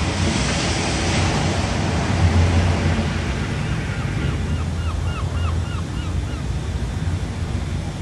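Steady rushing outdoor noise, like wind on the microphone, over a low hum, louder in the first couple of seconds. About halfway through, a bird calls a quick run of about eight short notes, roughly three a second.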